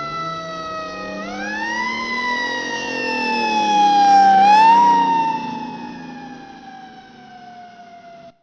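Fire truck siren wailing: its pitch rises quickly twice and slides slowly down between the rises, over a lower engine rumble. It grows louder toward the middle, fades, and cuts off suddenly near the end.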